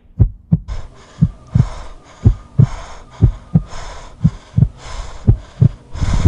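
Heartbeat sound effect: slow double thumps, lub-dub, about one pair a second. A hissing wash comes in under it about a second in.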